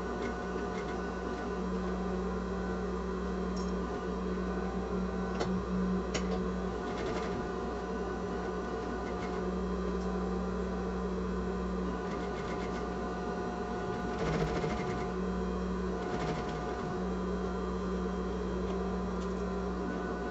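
Sewing machine running in steady stretches with a few short pauses, stitching the sides of a bag closed.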